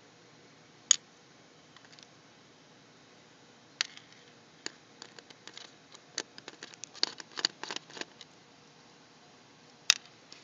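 Small screws and a screwdriver clicking and tapping on the plastic casing of an HP DV7 laptop. A sharp click comes about a second in, then scattered clicks, a quick flurry of them for a few seconds in the middle, and one more near the end.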